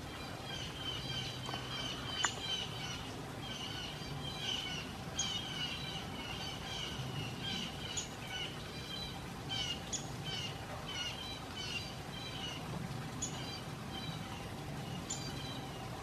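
Small birds calling: a steady chatter of short chirps, with a sharp, high call note every couple of seconds, over a faint low background hum.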